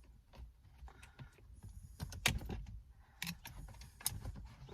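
Scattered sharp clicks and light rattles of plastic interior trim as a trim tool pries a wiring connector loose from a car's shifter console trim, with the strongest clicks about two seconds and about three seconds in.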